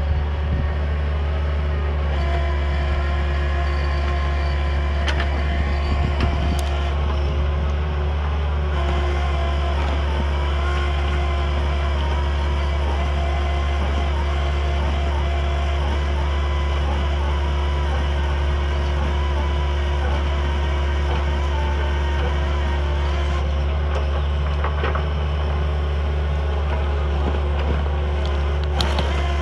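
Compact excavator's diesel engine running steadily under load, driving a hydraulic R-Top stump drill that bores into a tree stump, with a wavering whine over the steady engine hum. A few sharp clicks now and then.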